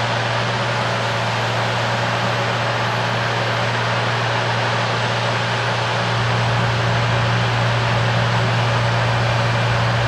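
Oxbo 9630 sweet corn harvester and a John Deere tractor running side by side at harvest: a steady engine drone with a constant low hum over the even rushing noise of the machinery, growing a little louder after about six seconds.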